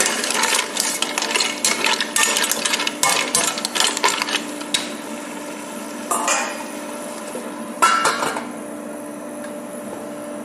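Mussels being stirred in a stainless steel pot with a metal utensil: the shells clatter and the utensil knocks and scrapes against the pot in a dense run of clicks for about five seconds. Then come two separate metallic knocks, the second a ringing clang as the stainless steel lid goes back onto the pot.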